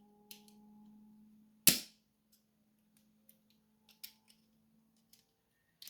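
A sharp metallic snap about two seconds in, with a few lighter clicks and ticks around it: a C-clip being pried off the plug of a rim cylinder lock and small lock parts handled.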